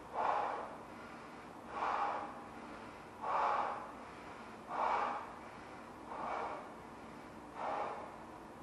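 A person blowing up a large latex balloon by mouth: a sharp, noisy breath about every second and a half, six in all, as the balloon is inflated toward popping.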